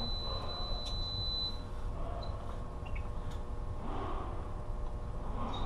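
A high-pitched electronic alarm beep held for about a second and a half at the start, over a steady low hum. Soft rustling of cable being handled comes about four seconds in and again near the end.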